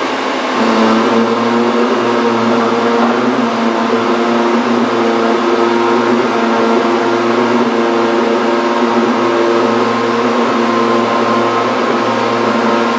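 Large industrial drilling machine tool running under power: a steady mechanical hum over broad machine noise, with several held tones that come in about half a second in.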